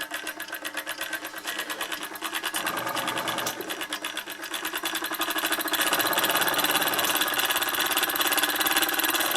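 Bowman M158 model steam engine running on compressed air, a fast even rhythm of exhaust beats that grows louder about five seconds in as it picks up speed.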